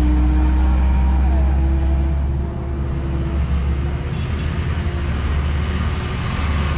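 A heavy truck's diesel engine pulls hard up a loose dirt road close by, a loud, steady low rumble. About two and a half seconds in, it gives way to a quieter, more distant engine as a bus comes along the same dirt track.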